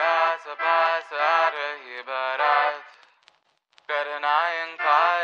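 Background song with a sung, chant-like melodic line in phrases of about a second each. It breaks off completely for about a second just past the middle, then resumes.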